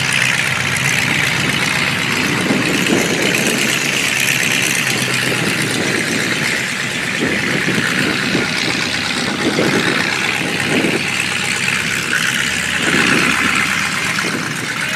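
Demolition derby car engines idling in the pit: a steady, loud running noise with uneven surges.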